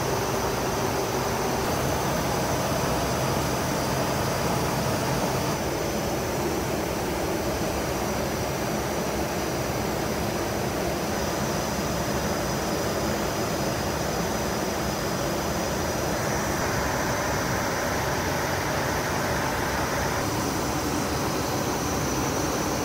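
Steady rush of airflow and engine noise inside the cockpit of an Embraer business jet in flight, with a few faint steady tones in it. The noise changes slightly in character a few times.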